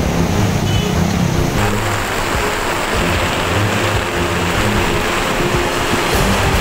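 Floodwater rushing across a street in heavy rain: a loud, steady wash of water noise, which changes in character about a second and a half in.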